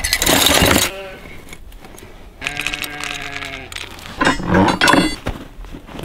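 Dog-proof raccoon traps and their chains rattling and clinking as one is pulled out of a plastic tote, then a single held, pitched call lasting about a second, then more metallic chain clinking as the trap's stake is pushed into the ground.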